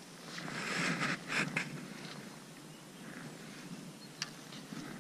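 Clothing and tackle rustling close to the microphone while a fishing hook is rebaited with sweetcorn: a burst of rustling from about half a second in to nearly two seconds, then quieter handling with a few faint clicks.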